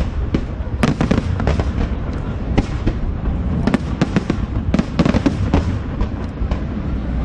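Fireworks display: shells bursting in a quick, irregular series of sharp bangs over a continuous low rumble.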